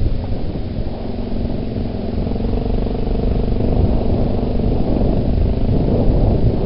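Yamaha Big Bear 400 ATV's single-cylinder four-stroke engine running at a steady pace while riding, over a heavy low rumble.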